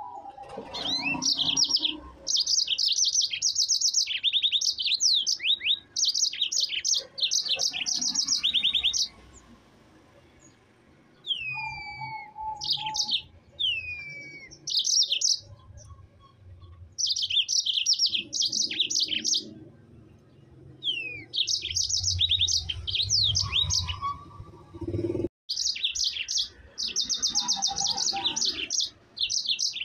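Yellow-fronted canary singing: repeated bursts of fast rolling trills, broken by short pauses, with a few separate down-slurred whistles around the middle.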